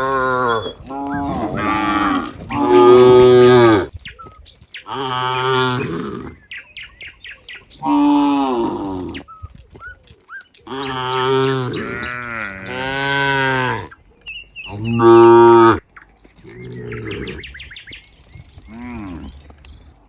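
Several cows mooing in turn: a string of about ten long, drawn-out moos, some overlapping one another.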